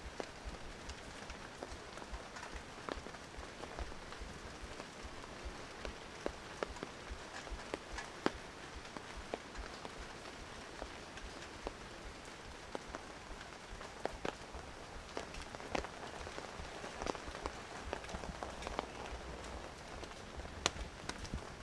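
Steady tropical rain falling on foliage and paving, a continuous hiss with many scattered sharp taps of close drops.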